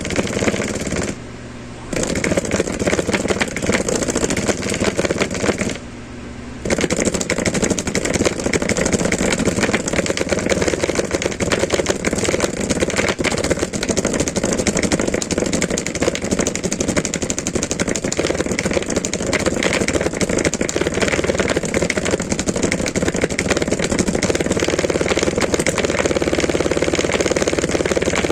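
A loudspeaker with a burnt-out amplifier putting out loud, continuous, harsh crackling distortion. It cuts out abruptly twice near the start, each time for under a second.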